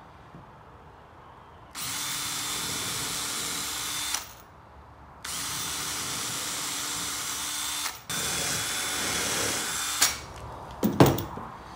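Cordless drill boring 2.5 mm pilot holes into small wooden pieces: three runs of a few seconds each with a steady motor whine. A few sharp knocks follow near the end.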